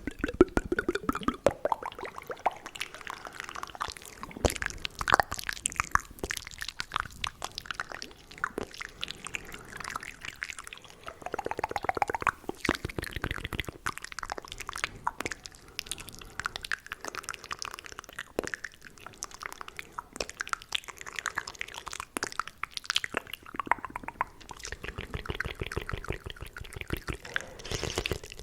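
Fast, aggressive wet mouth sounds close to the microphone: rapid clicking, smacking and squishing of lips, tongue and saliva, with no words.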